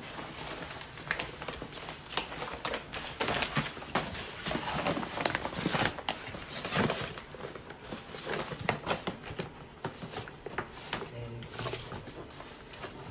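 Dog ripping and rummaging through Christmas wrapping paper, tissue and a paper gift bag: irregular crackling and rustling with scattered light taps, busiest in the first half.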